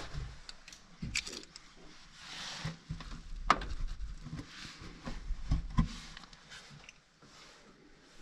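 Irregular knocks, scrapes and rustles of a person clambering through a wooden attic crawl space, gripping beams and stepping over joists. The sharpest knock comes about three and a half seconds in, and it goes quieter near the end.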